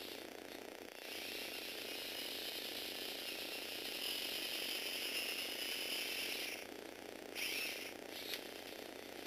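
Electric motor and plastic gears of a motorized Lego Technic model running, a steady whir with gear clatter that starts about a second in and cuts off after about five and a half seconds. A short second burst of whirring and a click follow near the end.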